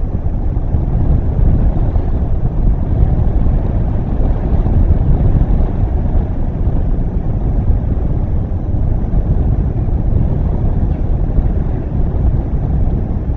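Wind buffeting an outdoor microphone: a steady, loud low rush with no distinct events.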